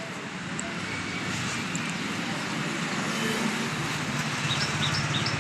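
Road traffic: a motor vehicle's engine and tyre noise growing steadily louder as it approaches, with a series of short high chirps in the second half.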